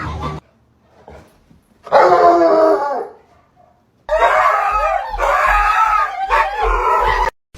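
A dog howling in drawn-out, wavering calls: one about two seconds in, then a longer run from about four seconds in that cuts off suddenly near the end.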